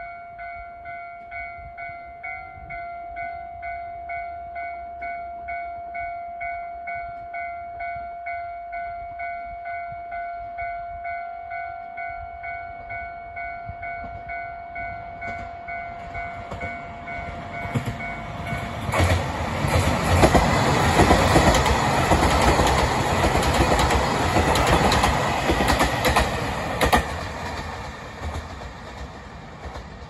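A warning bell rings steadily at about two strokes a second. About two-thirds of the way in, a JR Hokkaido KiHa 283 series diesel express train passes slowly, and its engine and wheel noise drowns the bell. The train noise is loudest for several seconds, with a sharp wheel clack near the end, then fades as it pulls away.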